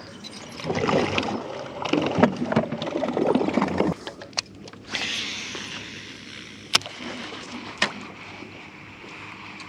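Water sloshing and splashing around a small fishing boat for the first few seconds, then a fading hiss and two sharp clicks about a second apart.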